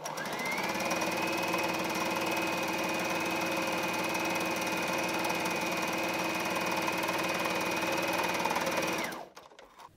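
Brother GS2700 home sewing machine stitching a straight seam at a steady speed: its motor whine rises as it starts, holds level, and stops about nine seconds in.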